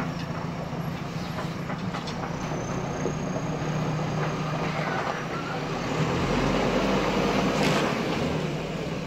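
Diesel engine of a JCB earthmoving machine running steadily, with metallic clanking and rattling. A deeper rumble swells in about six seconds in, and there is a short hiss near the eight-second mark.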